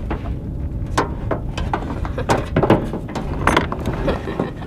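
Irregular taps, knocks and rattles as a fluke (summer flounder) is held down and flaps on a plastic measuring board, over a steady low rumble.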